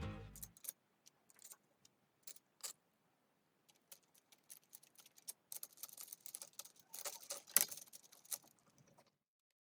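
Faint, irregular clicks and light rattling of small hard objects being handled. They are busiest from about five to eight seconds in, with one sharper click, and stop about nine seconds in. Music fades out at the very start.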